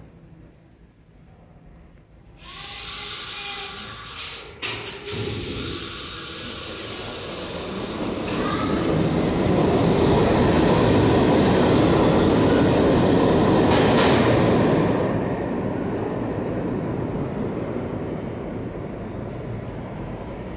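R68A New York City subway train pulling out of a station. A hiss starts about two seconds in, with a couple of clunks near five seconds. Then its motors and its wheels on the rails grow loud as the cars go past, and they fade away as the train leaves.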